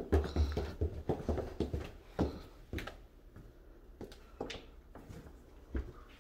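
Footsteps coming down a staircase: quick heavy thuds, about three or four a second. After about three seconds they give way to a few lighter steps and knocks on the floor below.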